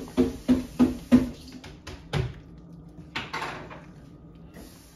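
Kitchen handling noise: a few knocks and clatter of cookware and utensils, with a sharp knock about two seconds in and a short scraping rustle a little after three seconds.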